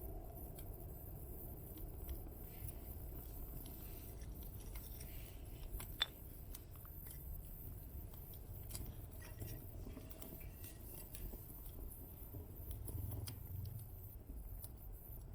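Small wood fire crackling in a titanium solo fire stand, with scattered pops and one sharp, ringing pop about six seconds in, over a low steady rumble.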